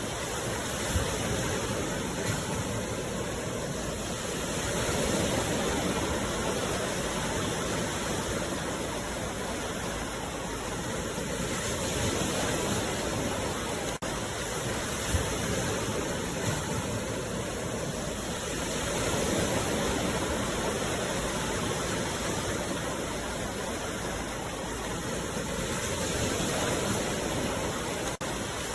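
Ocean waves washing in on the shore in a steady surf, the rush swelling and easing every several seconds.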